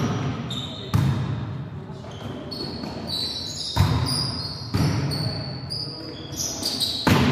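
A volleyball is struck by hands and forearms during a rally: about four sharp smacks a second or more apart, each echoing in the gym hall. High short squeaks, typical of sneakers on the court floor, sound in between.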